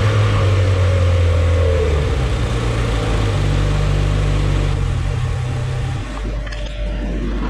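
Rotax 800 E-TEC two-stroke twin snowmobile engine, fitted with V-force reeds and a Bondi airbox, running hard under load on a dyno. About six seconds in its loud engine note drops off suddenly, leaving a lower steady hum.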